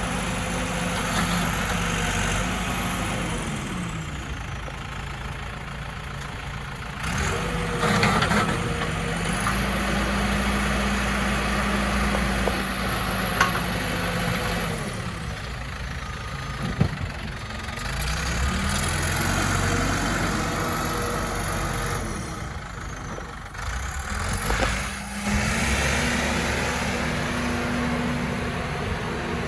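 The New Holland 575E backhoe loader's diesel engine revving up, holding, and dropping back to idle about three times. A high whine rises and falls with the engine speed, and there are two sharp knocks near the middle.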